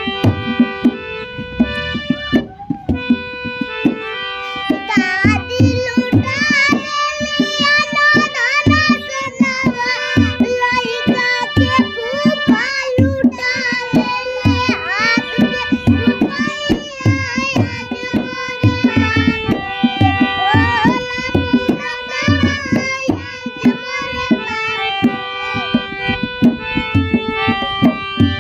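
Two young children singing a folk-style song in Hindi to a harmonium, with a steady hand-drum beat underneath. The harmonium and drum play alone at first; the voices come in a few seconds in and drop out near the end.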